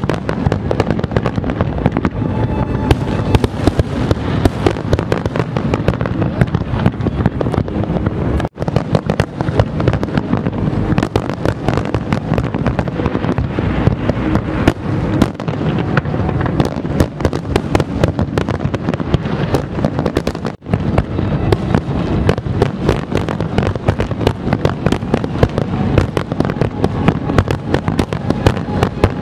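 Large aerial fireworks display at full barrage: rapid, overlapping bangs and crackle, many per second with no let-up. The sound drops out for an instant twice, about a third and two thirds of the way through.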